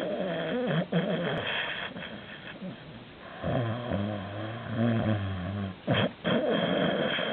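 A sleeping cat snoring very loudly, breath after breath. A deeper, steadier snore comes in the middle, and there is a short break about six seconds in.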